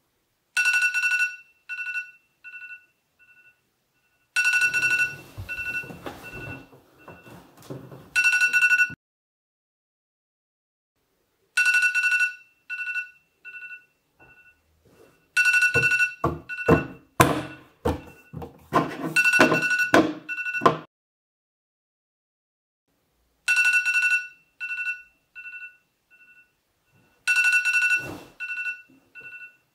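Smartphone alarm ringing: a high beep with fading echoes, repeating about every four seconds. Between the beeps come rustling bedding and a run of thuds as the sleeper fumbles toward the phone on the nightstand.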